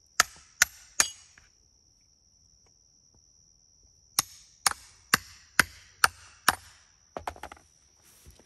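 Hammer blows on a steel stump vise set in oak rounds. Three quick strikes at the vise in the larger round, then after a pause six steady blows, about two a second, drive the vise into the end grain of a smaller oak log, followed by a few lighter knocks.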